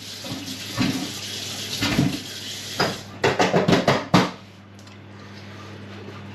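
Kitchen tap running as hands are washed under it, splashing unevenly. About three seconds in comes a quick run of sharp clacks and knocks, and after that the water is no longer heard.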